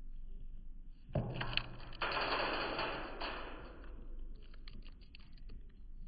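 Blue jay pecking through seed on a bird feeder's tray: quick, irregular clicks and taps of beak and seed, with a louder burst of rustling from about one to three seconds in.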